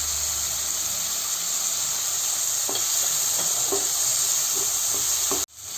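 Mushrooms, carrots and beans sizzling as they stir-fry in hot oil in a ceramic pan over a high flame, with light scrapes of stirring. The sound cuts off suddenly near the end.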